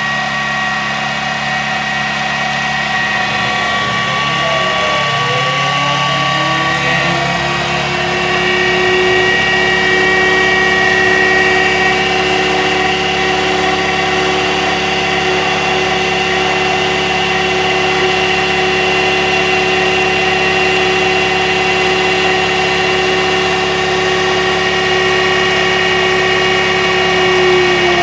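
Taifun Blizzard 22cc model diesel engine running; its pitch climbs between about four and nine seconds in, holds steady at high speed, then starts to drop near the end.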